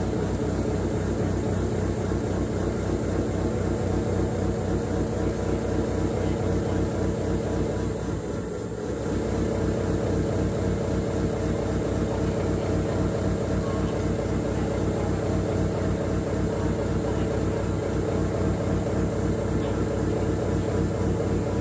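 RMT TGB14 CNC pipe-threading machine running, its rotating tool head machining the flanged end of a stationary ductile iron pipe: a steady, dense machine hum that dips briefly about eight seconds in.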